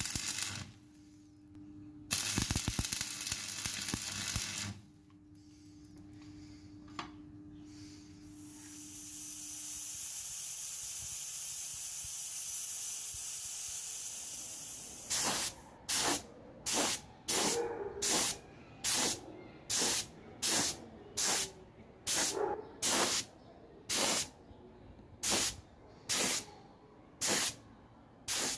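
An angle grinder with a flap disc grinds the steel of a pipe wrench part with a steady hiss. In the second half, a paint spray gun fires a rapid series of short hissing blasts, about three every two seconds.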